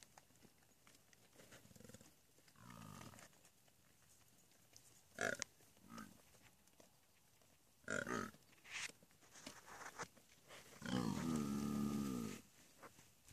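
Scimitar-horned oryx 'orking': a short call about two and a half seconds in and a longer, louder call lasting over a second near the end. Two brief sharp noises come in between.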